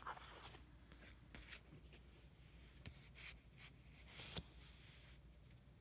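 Faint, scattered rustles and light taps of sheets of sample art paper being handled and laid out.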